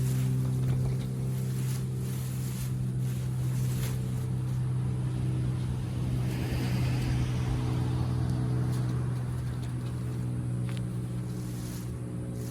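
A steady low engine-like hum runs throughout, with a few light knocks and a brief rustle about six seconds in.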